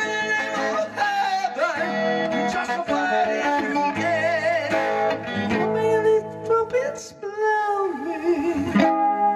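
Live song: a singer with an electric guitar, long notes wavering up and down in pitch over the guitar.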